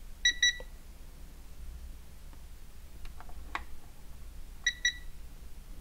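A Sanwa digital multimeter beeps twice in quick succession, and again about four and a half seconds later, as its test probes are touched to the amplifier's supply points. Light clicks come between the beeps, over a steady low hum.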